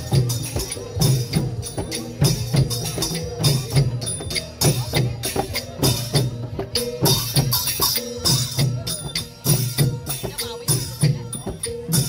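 Thai long-drum (klong yao) procession band playing a steady, driving rhythm of hand-struck drum beats, with small cymbals clashing over them.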